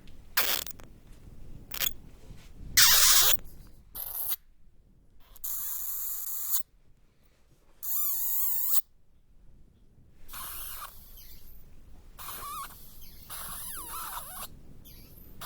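A string of separate bat sound effects cut back to back: short high squeaks and chittering bursts, a hissing stretch, and a wavering, warbling call about eight seconds in.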